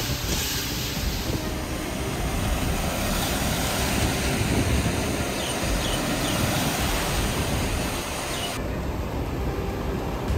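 Heavy rain and cars wading through a flooded road: a steady rush of water and tyre spray with a low vehicle rumble underneath. The high hiss thins suddenly near the end.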